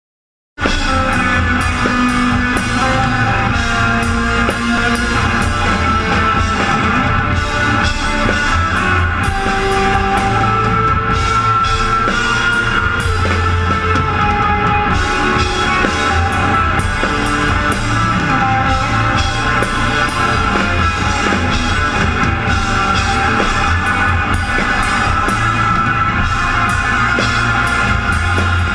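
Rock band playing live and loud: a Natal drum kit pounded hard under electric guitars. The music cuts in sharply about half a second in.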